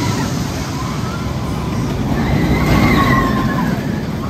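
Invertigo inverted roller coaster train running along its steel track overhead: a steady rumble that swells to its loudest about three seconds in, with a high held tone above it near the peak.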